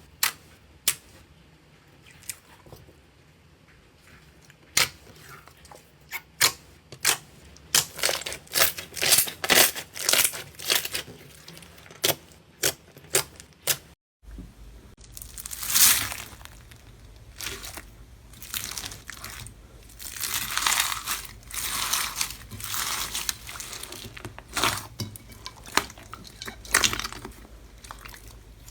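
Slime being worked by hand, in two clips. The first is sharp, crisp clicks and pops that come faster and denser after several seconds. After a break, the second is longer crunchy, crackling squishes.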